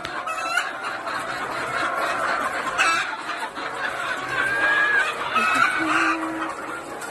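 A dense, continuous chorus of many chickens clucking and calling together, with single louder squawks and short calls standing out above it several times.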